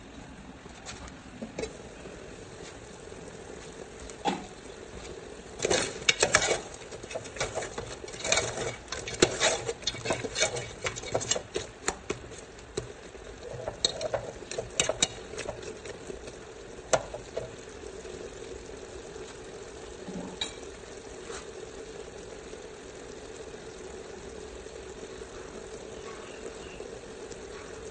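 A spatula stirring and scraping pieces of meat around a metal pot, with sharp clinks and scrapes against the pot through the middle of the stretch, over a low sizzle of the braising sauce. After the stirring stops, the sizzle goes on with a steady low hum.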